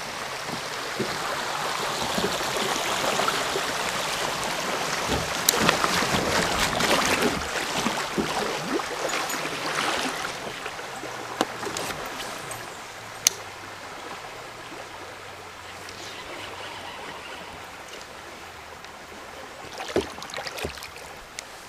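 Shallow river riffle rushing around a kayak, loudest over the first half and fading as the boat reaches calm water, with a few sharp knocks along the way.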